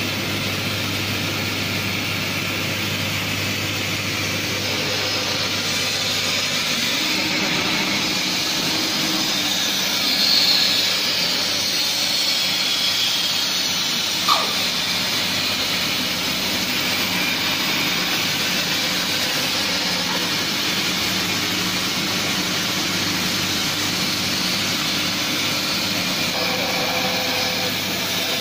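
CNC band saw running, its blade cutting a wooden board under program control: steady machine noise, with a brief swell about ten seconds in and a single sharp click near the middle.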